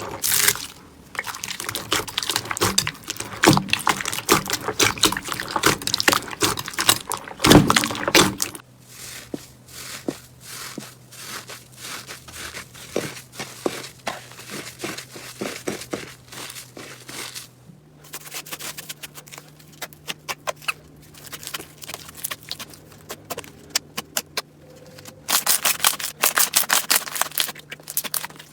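Slime being squeezed and pressed by hand: rapid crackling and popping clicks. The sound changes abruptly twice, about a third and two thirds of the way through.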